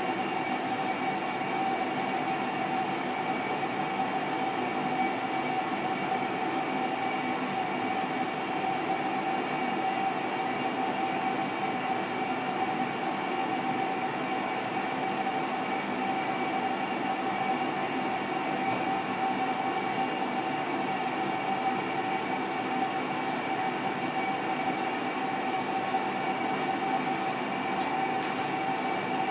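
KERR oil furnace's burner running with a steady, unchanging drone and a constant whine.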